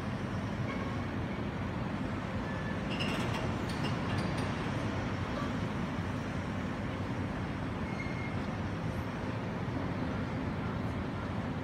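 Steady low rumble of heavy machinery at a building's foundation works, with a few sharp clanks about three to four and a half seconds in.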